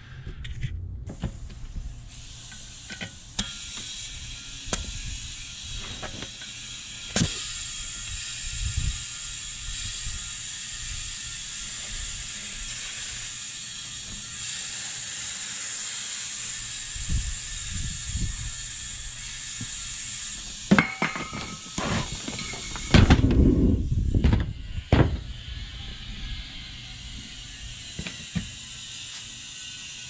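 Compressed air from a shop compressor hissing steadily through a clip-on chuck into a skid steer tire and escaping past the unseated bead, which fails to seat. A few knocks, and a louder spell of thumps and rumbling about three-quarters of the way through.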